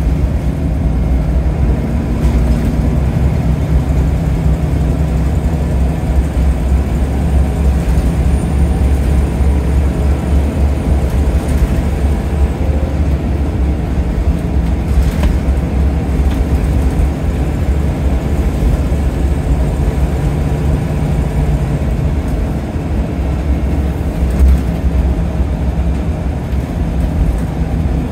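Scania L94UB Wright Solar single-deck bus on the move, heard from inside: a steady low engine drone under road and body noise. The engine note shifts slightly a couple of times as the bus changes speed, and there is a single knock near the end.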